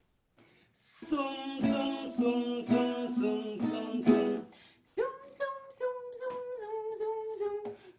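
Acoustic string instrument strummed in a rhythmic instrumental break of a children's song. The chords repeat about four times a second, and from about five seconds in they give way to a melody of held notes stepping downward.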